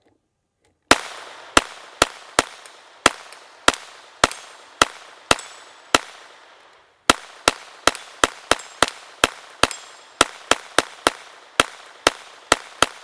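Tippmann .22 LR hand-cranked Gatling gun firing a string of single shots as it is cranked, about two a second, then after a pause of about a second a quicker string of about three a second. Some shots are followed by a faint high ring.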